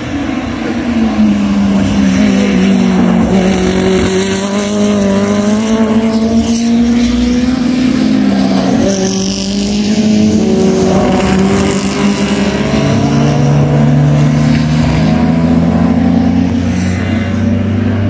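Historic Formula Junior single-seater racing cars passing in close succession at racing speed. Their engine notes fall and rise again and again as the cars lift off, change gear and accelerate through the corners.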